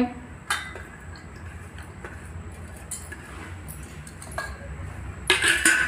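Stainless-steel plate and bowl knocking and scraping as chopped onions are pushed off the plate into the bowl by hand. There is a light knock about half a second in, a few faint taps, and a louder scraping clatter near the end.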